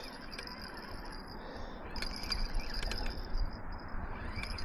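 Spinning reel being cranked to bring in a hooked fish: a faint, steady gear whir with a few sharp little clicks about two seconds in, over low wind rumble on the microphone.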